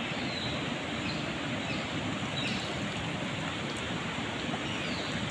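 River water rushing steadily, with a few faint short high chirps over it.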